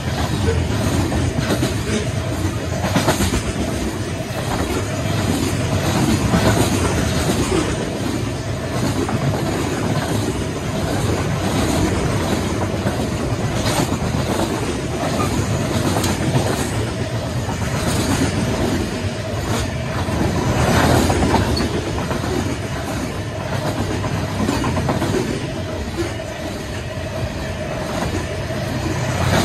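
Union Pacific freight train's open-top freight cars rolling past close by: a steady rumble of steel wheels on rail with scattered sharp clacks at irregular intervals.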